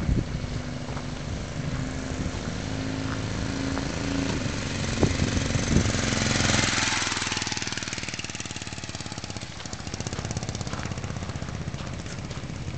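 1982 Honda Hondamatic motorcycle's parallel-twin engine running as the bike approaches across dirt. It passes close about six seconds in, loudest there, then goes on running more quietly.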